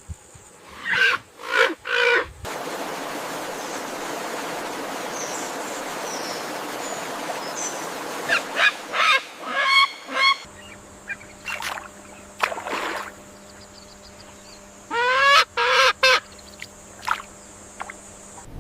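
Waterfowl honking calls in short runs of two to four, over a steady outdoor background.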